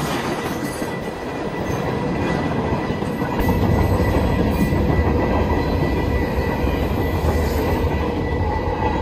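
Freight cars rolling past: steady rumble and rattle of steel wheels on the rails with a thin, steady high squeal. The low rumble grows deeper and louder about three and a half seconds in.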